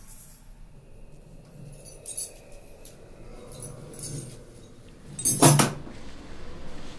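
Old metal keys clinking and jangling lightly as they are handled, in scattered small clicks. About five seconds in, a loud, short crash lasting about half a second.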